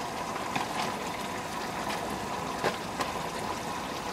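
Tomato stew with chicken drumsticks bubbling at a steady simmer in a pan, a continuous watery hiss with a few sharp clicks, the loudest about three seconds in.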